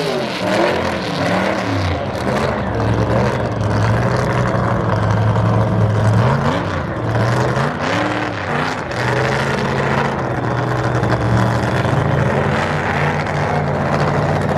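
Drag racing doorslammer's V8 engine running loud through a burnout, then idling with throttle blips, its pitch rising and falling, as the car reverses back toward the start line.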